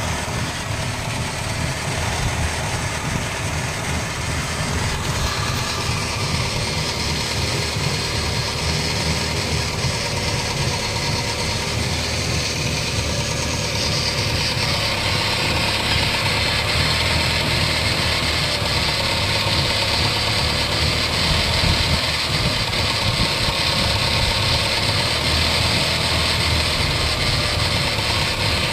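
Holden Barina TK on the move with a worn wheel bearing: a steady low rumble and drone under road noise, growing a little louder from about halfway through.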